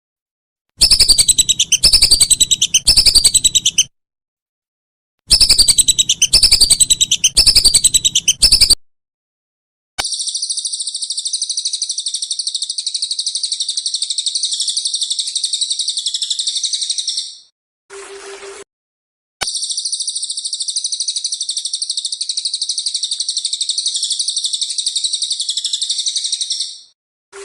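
Recorded bird song for training captive songbirds. First come two bursts of fast, repeated, high chirps, each sweeping downward, a few per second. Then a long, unbroken, high-pitched trill is heard twice, broken by a short low hum, and each part starts and stops abruptly.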